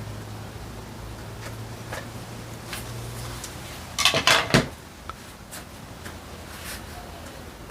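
A brief clatter of hard objects knocking together, about half a second long and a little past the middle, with scattered light clicks and knocks around it. A low steady hum stops shortly before the clatter.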